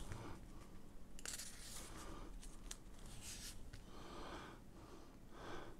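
Faint rustling of a paper instruction manual being handled and its page turned, with a couple of light clicks.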